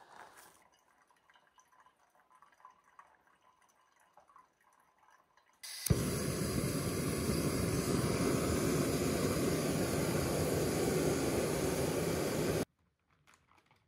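Small stream of flowing water running steadily close by. It starts abruptly about six seconds in and cuts off about seven seconds later, after a few seconds of faint quiet sounds.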